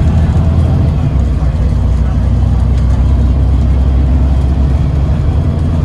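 Yutong ZK6126HG city bus heard from inside the passenger cabin while driving: a steady, loud low drone of engine and road noise.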